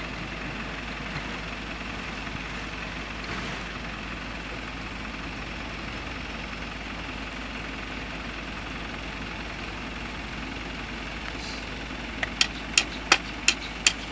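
Diesel engine of a Komatsu hydraulic excavator running steadily as it works beside a dump truck. Near the end comes a run of sharp knocks, about two or three a second.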